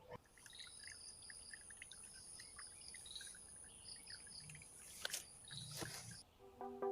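Faint water dripping and trickling from a small PVC aquarium fountain fed by a 12 V submersible pump, with a steady high insect-like drone behind it and two clicks near the end.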